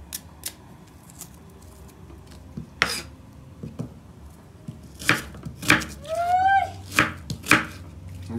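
Kitchen knife chopping an onion on a wooden cutting board: a few light taps, one sharp knock, then a run of sharp knocks of the blade on the board in the second half.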